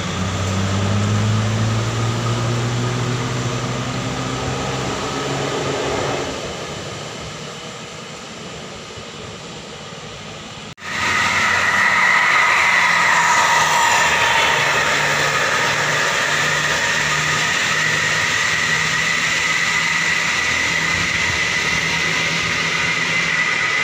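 A vehicle engine running as it passes, its tone rising slightly and then fading away. After an abrupt cut, a loud steady high-pitched whine with a second tone below it, over a low pulsing beat from running machinery.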